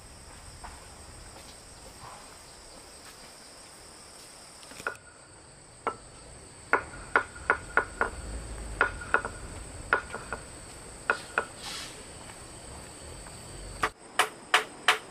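Hammer blows, about a dozen irregular strikes with a short metallic ring, then a quick even run of blows, about two or three a second, near the end. Insects shrill steadily in the background through the first part.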